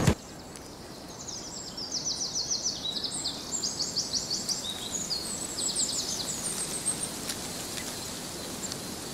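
Crickets chirping in repeated short, rapid-pulsed trills over a faint hiss, after a brief loud hit at the very start.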